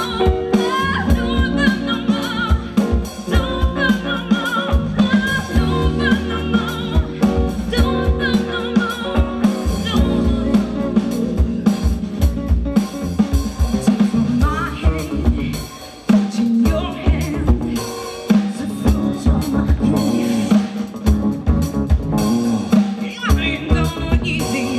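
Live band playing a funk-rock song: a woman singing lead over drum kit, electric bass and electric guitars. About two-thirds of the way through the band drops out for a moment, then comes straight back in.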